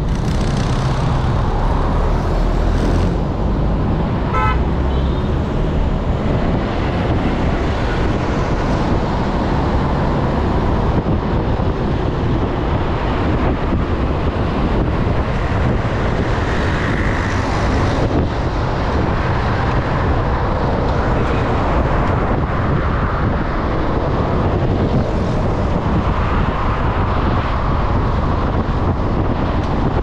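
Steady rumble of road traffic and road noise heard from a moving vehicle on a city boulevard, with a brief vehicle horn toot about four seconds in.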